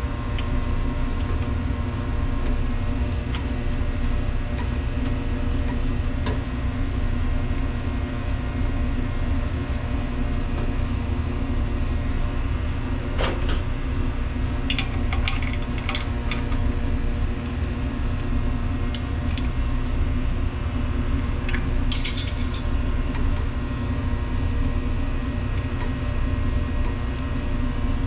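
Steady machinery hum at an even level, with a few light clicks and clinks about halfway through and again later on.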